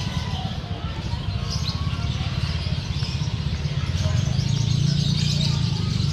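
Many caged songbirds chirping and calling at once, over a steady low rumble of market background noise.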